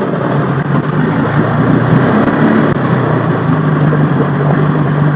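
A motor running steadily, a low hum that settles into one even pitch about two seconds in.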